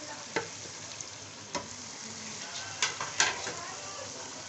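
Chicken and potato masala sizzling in a metal wok while a wooden spatula stirs it, with four sharp knocks and scrapes against the pan, the loudest two about three seconds in.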